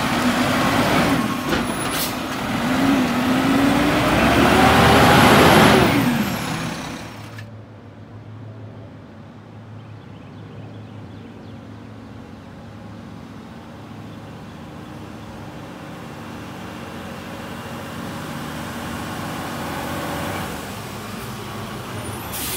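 Mack side-loader garbage truck's engine revving up as its automated arm lifts and dumps a cart, the pitch rising and then falling over about six seconds before the sound drops away abruptly. After that a second side loader approaches, its engine a low steady drone that slowly grows louder, with a short sharp hiss near the end.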